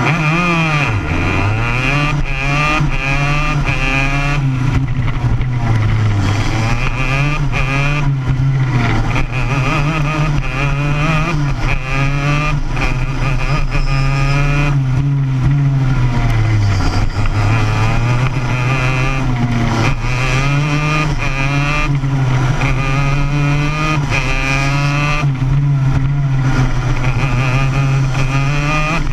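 Racing kart engine heard onboard at full racing revs, rising in pitch along the straights and dropping sharply each time the driver lifts and brakes for a corner, several times over.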